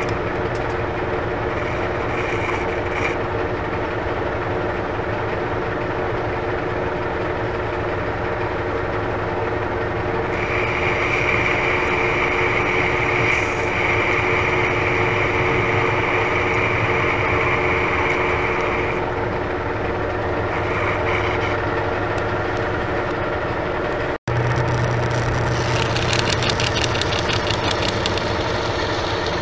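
Metal lathe running with a steady hum, the workpiece spinning in the chuck. From about ten seconds in, the cutting tool facing the end of the part adds a high, steady tone for several seconds. The sound drops out for an instant about two-thirds through, and near the end a hand deburring tool scrapes the spinning edge with a rapid scratching.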